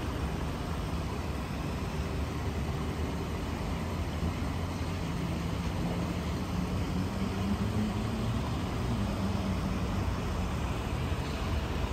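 Steady low rumble of distant road traffic. About halfway through, a passing vehicle's engine hum rises, then fades.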